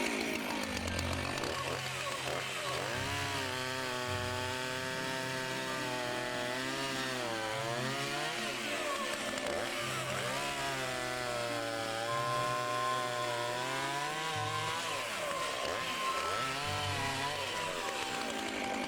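Chainsaw running at full throttle and cutting wood, its engine pitch sagging and recovering several times as the freshly sharpened chain bites in.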